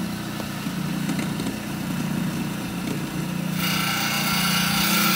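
Wet saw's diamond blade spinning with a steady motor hum; about three and a half seconds in, the blade starts biting into a piece of agatized coral and a louder hiss of stone being cut joins in.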